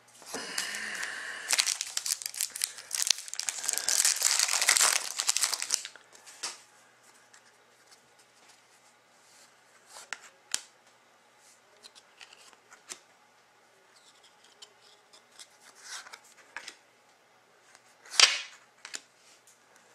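The wrapper of a Panini Select hockey card pack being torn open and crinkled, a loud dense rustle for about the first six seconds. Then come scattered soft clicks and rustles of cards being handled, with one short loud crinkle near the end.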